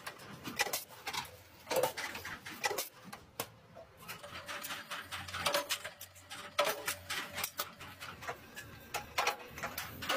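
Steel sheets clanking and knocking as they are handled and worked in a power press, many irregular sharp strikes, with a low machine hum underneath.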